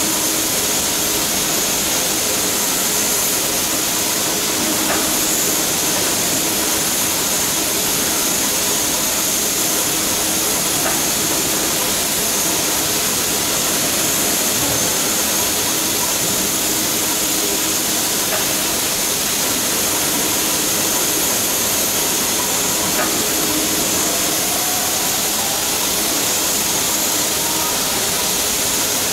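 Steady hiss of escaping steam from the standing class 52 2-10-0 steam locomotive 52 8195-1, with a few faint clicks now and then.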